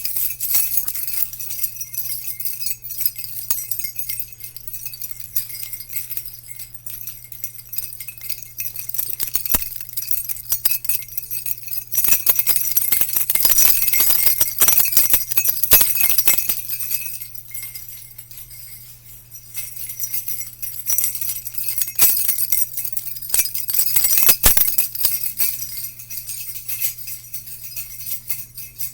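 Jingle bells shaking in a continuous high, shimmering jingle that swells louder about halfway through and again near the end. A steady low hum runs underneath.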